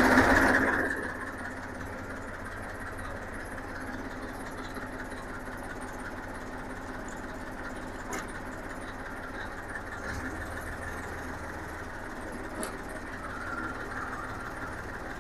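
Massey Ferguson 241 DI tractor's three-cylinder diesel engine, just started, loud for about the first second and then running steadily at low revs.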